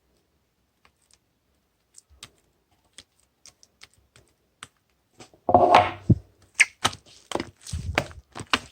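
Irregular clicks and taps, sparse at first, growing into a louder, denser clatter of clicks and thumps from about halfway through.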